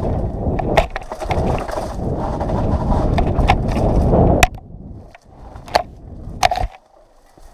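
Mountain bike riding fast down a dirt singletrack: a loud rushing of wind and tyres on dirt, with sharp rattling clicks from the bike over bumps. The rushing drops away suddenly about four and a half seconds in, leaving quieter rolling and a couple more clicks.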